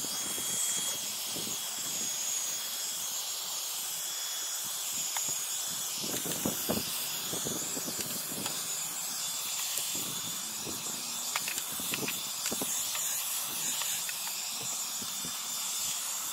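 Baseus cordless handheld vacuum cleaner running steadily: a high motor whine over rushing air. Scattered clicks and rattles come from grit being sucked up off the car's floor carpet.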